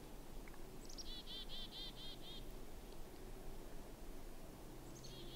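Black-capped chickadee giving its chick-a-dee call twice: a brief high opening note, then a quick run of about seven buzzy 'dee' notes, first about a second in and again near the end.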